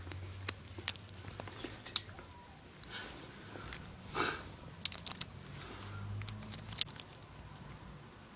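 Scattered small clicks and taps of a Beyblade's plastic and metal parts being handled and fitted together.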